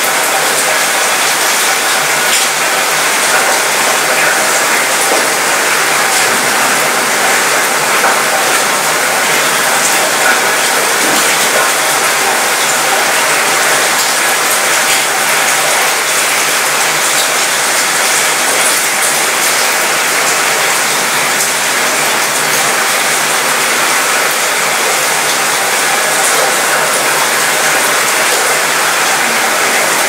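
Steady rain falling on a cruise ship's mostly metal balcony, the drops rattling on the metal: a dense, even hiss with many small ticks.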